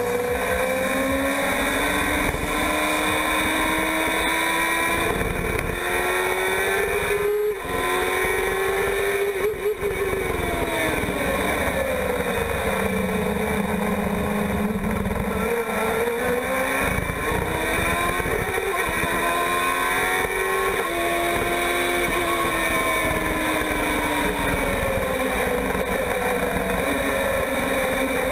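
Formula 1000 race car's motorcycle engine, heard onboard, running hard at high revs in second gear. Its pitch climbs and falls again and again as the car accelerates out of corners and eases off into them. The sound drops briefly twice, about seven and ten seconds in.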